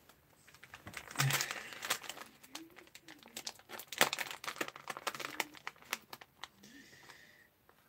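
Crinkling and rustling of packaging being handled, with many small irregular clicks and crackles.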